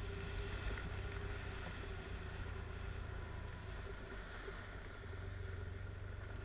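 Motorcycle engine running at a steady low speed, heard from a camera mounted on the bike: an even low rumble with a steady hum over it and a few faint ticks near the start.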